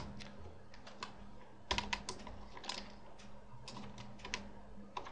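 Computer keyboard keys clicking in a few short scattered runs as code is typed, over a faint steady low hum.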